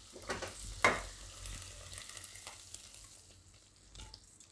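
Silicone spatula scraping and stirring fried okra in a nonstick wok, with two strokes in the first second, the second louder, over a faint sizzle of hot oil. Near the end the okra is tipped out of the wok into a pan of gravy.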